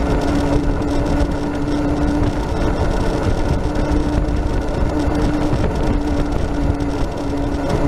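Road noise from a Max II 6x6 amphibious ATV being flat-towed on pavement: a continuous rumble of its tyres and running gear, with wind buffeting the microphone. A steady hum drops in and out.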